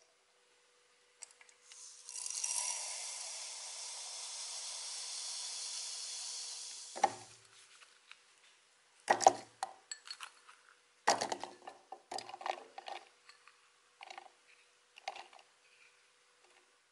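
Ingredients going into a plastic food-processor bowl: a steady pouring hiss for about five seconds, then a run of knocks and clatters as onion chunks and chopped garlic are dropped in.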